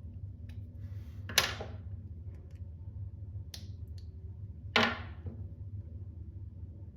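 3D-printed plastic toy switchblade knife clacking: two sharp snaps about three and a half seconds apart, with a fainter click between them, over a low steady hum.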